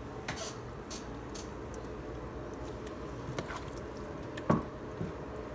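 Soft squishing and light clicks of a ground-beef filling being spooned from a pot and packed into a bell pepper, with one sharper knock about four and a half seconds in.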